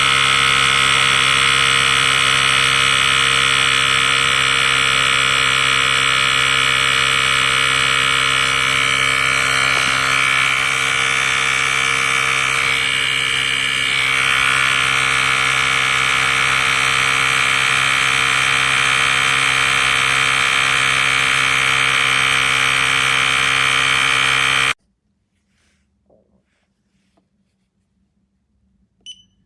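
The portable jump starter's built-in air compressor running steadily, a loud motor-and-pump drone, which cuts off suddenly near the end. A short high beep follows just before the end.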